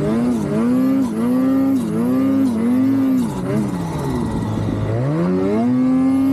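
Ski-Doo Summit Expert 154 Turbo snowmobile's turbocharged two-stroke engine revving up and down over and over as it drives the track through deep powder. The pitch drops low about four seconds in, then climbs and holds steady near the end.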